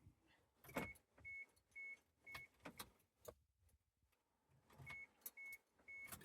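Faint vehicle warning chime in a 2000 Chevy Tracker beeping: short high beeps about two a second, four, then a pause, then three more, with scattered clicks around them.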